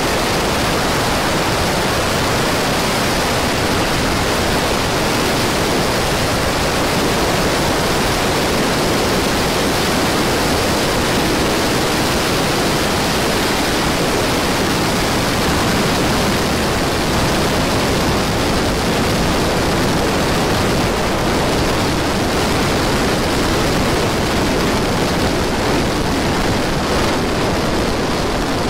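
Helicopter in flight heard from on board: engine, rotor and rushing air blended into one loud, steady hiss with no distinct beat or tone.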